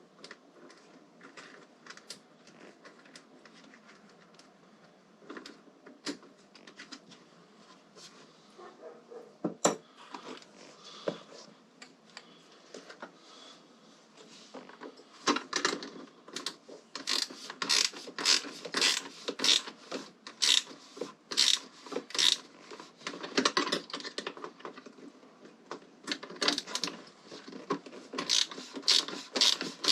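Hand-tool work on metal hardware: scattered clicks and knocks, then from about halfway through quick, loud runs of sharp mechanical clicks.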